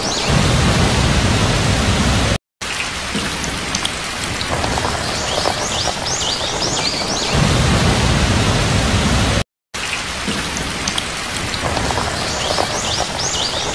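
Steady hiss of heavy rain with a low rumble of thunder that swells and fades. The track loops about every seven seconds and cuts out completely for a moment twice.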